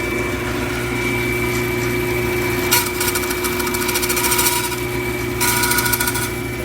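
Bandsaw running with a steady high whistle while cutting a small wooden glazing moulding. There are two short cuts, the first starting with a click just before the middle and the second near the end.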